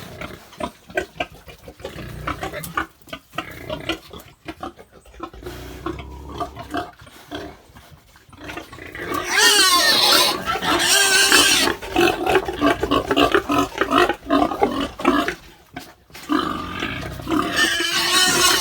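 Pigs grunting, then loud high-pitched squealing from about nine seconds in until about sixteen seconds, and again near the end.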